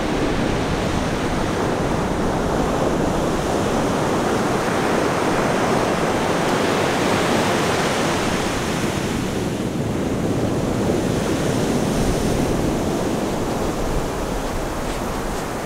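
Ocean surf breaking and washing up the beach: a continuous rushing wash that swells and eases.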